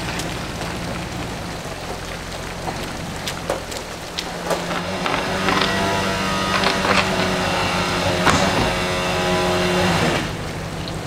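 A vehicle engine idles steadily, with occasional clanks. About five seconds in, a louder, even mechanical whine starts, typical of an electric winch pulling the car onto the trailer. It runs steadily for about five seconds and cuts off suddenly.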